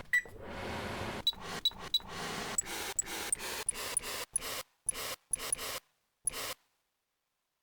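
Recorded oven fan noise played back as a series of keyboard-triggered sample notes, each starting with a short click and beep. The notes step higher in pitch and grow shorter as they go, then stop about a second before the end.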